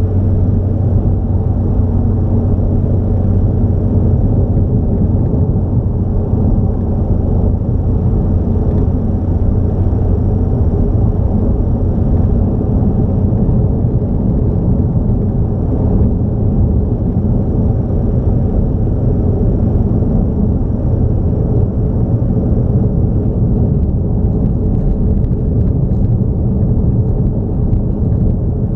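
Motor vehicle cruising at steady speed on a highway: a loud, unbroken engine and road rumble that holds the same pitch throughout.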